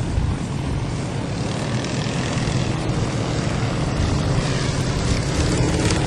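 Hummel UltraCruiser ultralight's engine and propeller droning steadily as the plane passes low overhead, growing a little louder near the end.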